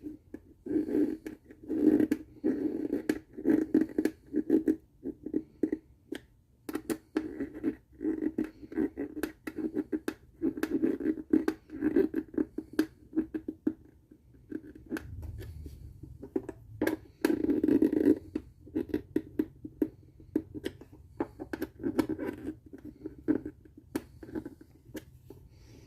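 Irregular scratching, scraping and light knocks from hands and small tools working on a wooden ukulele kit body.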